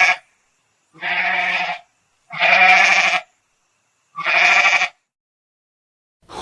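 Goat bleating repeatedly: the tail of one bleat, then three more of about a second each with short pauses between.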